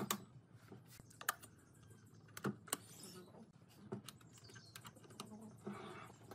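Scattered sharp clicks and light knocks, about half a dozen, as round LED downlights with metal housings are handled and pressed into holes in a wooden chandelier frame.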